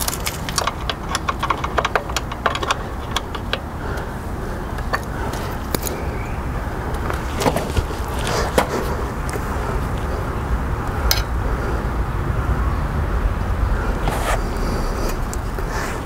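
Metal hand tools (hex driver, pliers, open-end wrench) clicking and clinking against each other and the motorcycle's rear axle hardware, with a quick run of clicks at the start and a few single louder clinks later, over a steady low rumble.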